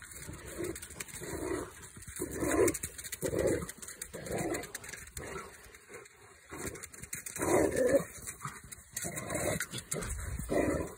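Rottweiler growling in short bursts about once a second while playing with a ball, with a lull about halfway through.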